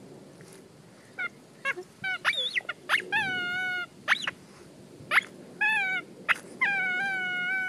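Dog whining with its nose at a hole in the leaf litter: high-pitched calls starting about a second in, several short ones and then longer, drawn-out whines.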